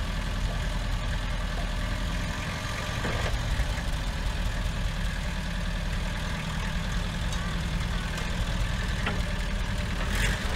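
Petrol engine of a 1936 Dennis 4-ton lorry idling with a steady low throb as the lorry rolls down the ramps of a low-loader trailer. A short clatter sounds near the end as the wheels come off the ramp.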